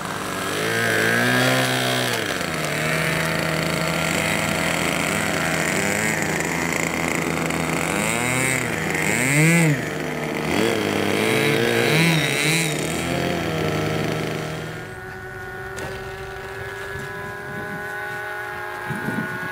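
Radio-controlled model airplane's engine flying overhead, its pitch repeatedly rising and falling as it passes and changes throttle. About fifteen seconds in it grows quieter and steadier as the plane moves away.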